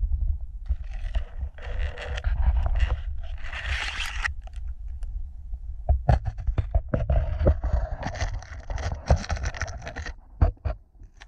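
Close-up scraping, rustling and clicking of gear being handled right at the microphone, under a constant low rumble of handling noise. The rustling comes in patches over the first few seconds, and a run of sharp clicks and scrapes follows in the second half.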